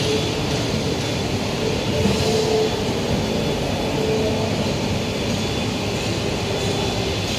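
Stone-cutting bridge saw running, its diamond blade cutting stone with a steady, even noise and a faint hum underneath.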